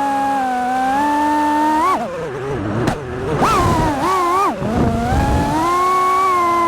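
FPV quadcopter's brushless motors whining at a steady pitch. About two seconds in the throttle comes off and is punched again, so the whine drops and swoops up and down for a few seconds, then settles back to a steady, slightly higher pitch.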